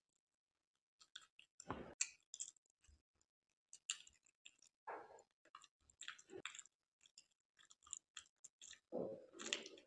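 Close-miked chewing of a soft, syrupy kala jamun: quiet, scattered wet mouth clicks and smacks, the loudest near the end.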